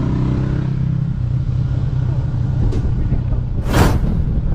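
Motorcycle engine running steadily at road speed with a low drone. A short, loud rush of noise comes about three and a half seconds in, the loudest moment.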